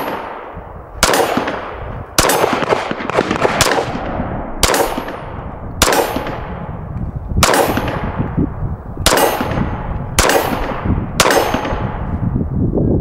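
Steyr M9-A2 pistol fired in slow, deliberate single shots, about ten of them roughly a second apart, each sharp report followed by a trailing echo.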